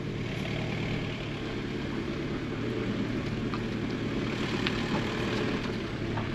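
Engine of a converted VW Caddy van running steadily while it rolls slowly along, with a steady low hum and road noise.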